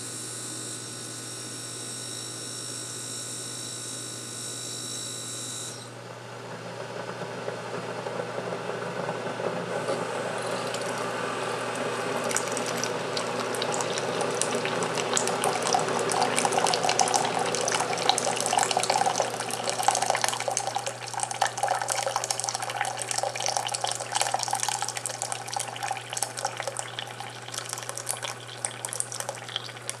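Keurig B40 coffee brewer dispensing a cup of hot water with no pod: a steady machine hum for about six seconds, then a stream of water into a glass measuring cup that builds up and hisses and spatters until the end.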